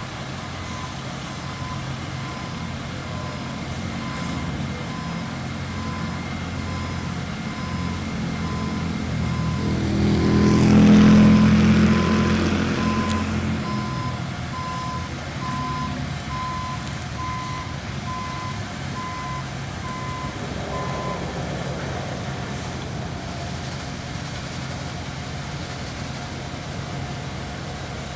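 A heavy truck's reversing alarm beeping about once a second over its diesel engine running. The engine swells loudly about ten seconds in and then settles, and the beeping stops about three-quarters of the way through.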